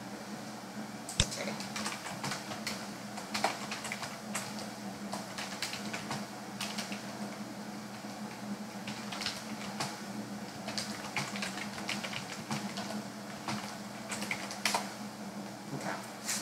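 Typing on a computer keyboard: irregular runs of keystroke clicks with short pauses, one sharper click about a second in, over a steady low hum.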